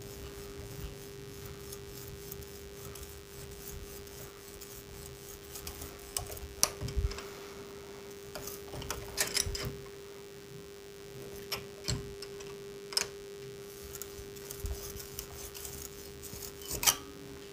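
Screwdriver tip twisted with pliers inside a hole in a wall, boring it wider: faint gritty scraping with scattered clicks and knocks, some in quick pairs, over a steady hum.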